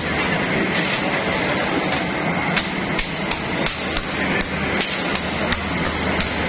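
Flat steel blade striking a steel table in sharp, irregular knocks, about two or three a second, as it chops sheets of brittle rewri candy into small pieces. Under it runs a steady factory machinery hum with a high whine.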